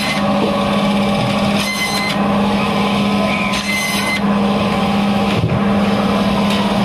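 Electric band saw running with a steady hum as its blade slices through mahseer fish steaks, with two brief brighter whines about two and four seconds in as pieces are pushed through the blade.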